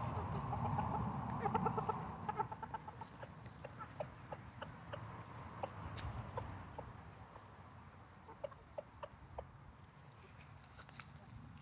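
A flock of bantam chickens clucking softly while feeding, with many short calls in the first few seconds that thin out and grow quieter, and scattered short clicks among them.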